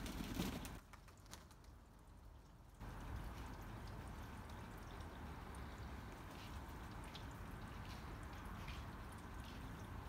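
Pigeons bathing in a shallow plastic tub of water, their wings splashing and flapping in it, loudest in the first second, then light splashes and drips.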